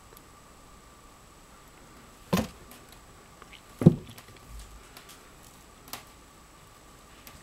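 Handling noise from working plastic lacing and wire by hand: two thumps about a second and a half apart, the second louder, then a couple of light ticks, over a faint steady high whine.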